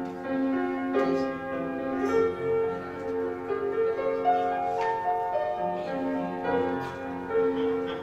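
Slow instrumental keyboard music: long held notes and chords that change every second or so.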